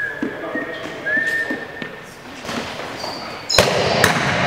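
Sneakers squeaking on the gym floor with light footfalls, then about three and a half seconds in a sudden loud rush of noise as play breaks out, with the sharp smack of a rubber dodgeball hitting.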